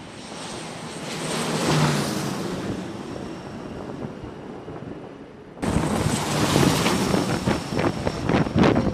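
Wind buffeting the microphone over a faint, steady high whine of aircraft engines on a carrier flight deck. The wind jumps suddenly louder and gustier about five and a half seconds in.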